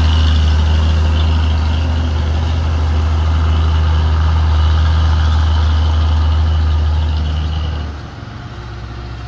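Overloaded Bedford truck's engine pulling slowly under a heavy load as it passes close by: a steady, deep drone with a faint high whine above it. It drops away sharply about eight seconds in as the truck moves off up the road.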